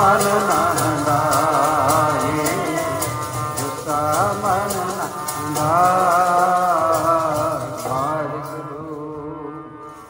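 Devotional hymn singing, in the style of Sikh shabad kirtan, with instrumental accompaniment and a steady rhythm of light strokes; it fades out over the last couple of seconds.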